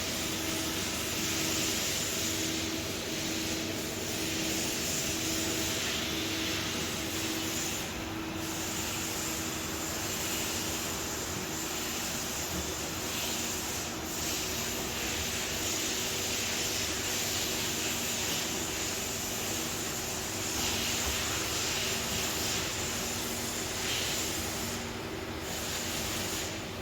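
Nakamura-Tome WT-150 CNC lathe running: a steady machine hum with a steady hiss over it that briefly dips a few times.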